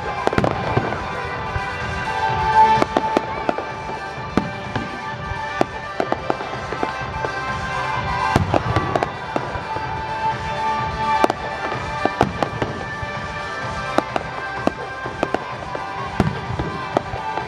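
Fireworks display: aerial shells bursting in a continual run of sharp bangs and crackles, the loudest about two and a half seconds in, with music playing underneath.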